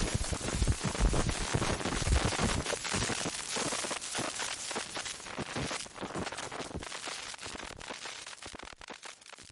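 Digital glitch sound effect: dense crackling and stuttering clicks over a wash of noise, with heavy low thumps in the first couple of seconds, then thinning out and fading into sparse clicks.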